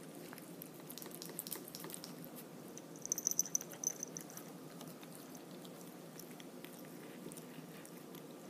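Plastic spoon scraping tuna out of an open metal can: light clicks and scrapes, then a high squeak lasting about a second, about three seconds in.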